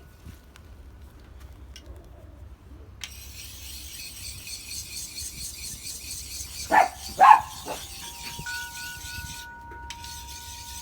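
Sharpening puck rasping along a steel blade edge, starting about three seconds in. A dog barks twice, loudly, about seven seconds in.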